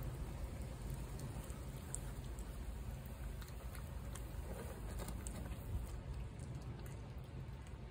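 A cat eating wet food from a plate, with many small irregular chewing and licking clicks over a low, steady rumble.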